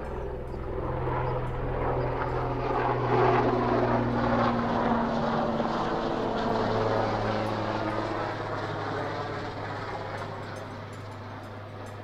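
Swiss Army Super Puma, a twin-turbine military helicopter, flying overhead. Its turbine and rotor noise swells to its loudest a few seconds in, then slowly fades as it moves away.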